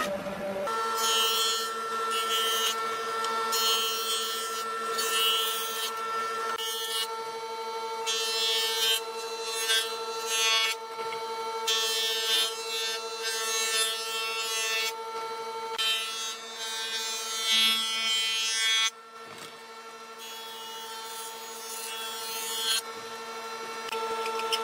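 Combination jointer-planer running with a steady whine, its cutterhead planing pallet-wood boards in repeated passes, each pass a burst of cutting noise over the hum.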